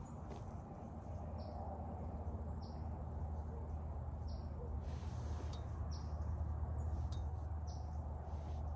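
A bird calling over and over, short high notes that fall in pitch, about five in eight seconds, over a steady low rumble.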